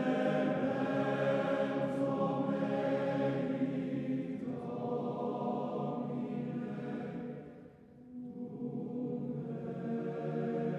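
Background music: a choir singing long sustained chords, with a short break about three quarters of the way through before the singing resumes.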